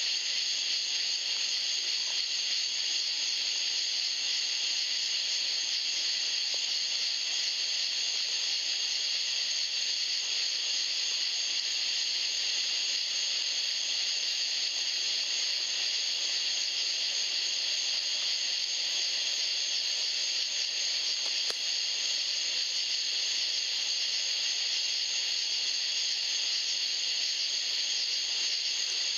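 Steady high hiss that does not change, the noise of the thermal rifle scope's own recording, with no shot or animal sound standing out.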